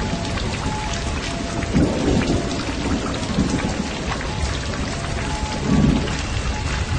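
Heavy rain pouring, with thunder rumbling; the rumble swells about two seconds in and again near the end.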